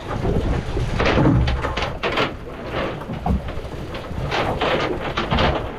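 Irregular knocks, rattles and splashes as a cast net full of small bait fish is shaken out into a bucket in a boat, fish and water dropping onto the deck, over a low wind rumble.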